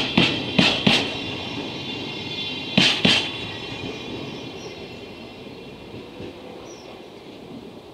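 Rail-carrying Chiki freight flatcars rolling past, their wheels clacking over rail joints in pairs, several in the first second and another pair about three seconds in. The rumble then fades as the end of the train draws away.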